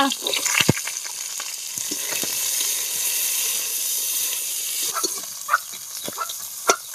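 Green chillies sizzling as they fry in hot oil in a metal wok alongside pieces of fish, a steady hiss that swells in the middle. A metal spatula scrapes and knocks against the wok, once about half a second in and several times near the end.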